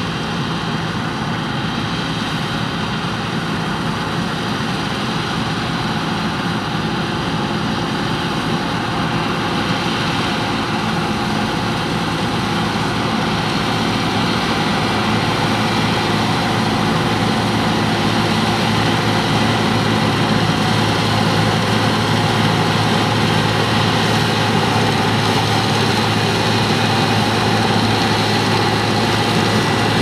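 Claas Lexion 480 combine harvester running steadily while cutting spring barley, a continuous machine drone that grows gradually louder.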